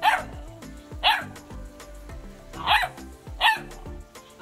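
Labrador puppy barking at a moving tortoise: four short, high, sharp barks at uneven intervals. Background music runs underneath.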